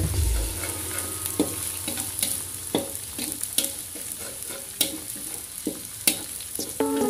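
Chopped shallot, garlic and chili sizzling in hot oil in a wok, stirred with a metal spatula that clinks and scrapes against the pan at irregular moments, about once a second.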